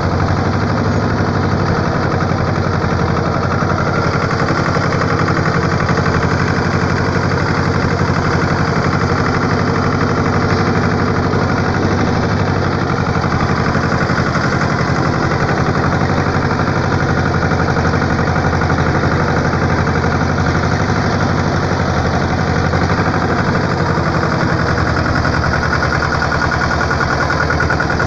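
An engine running steadily, with a rapid, even pulsing throughout.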